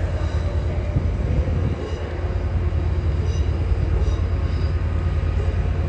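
An LNER Azuma passenger train pulling away over curved track, heard as a steady low rumble with faint high wheel squeals now and then.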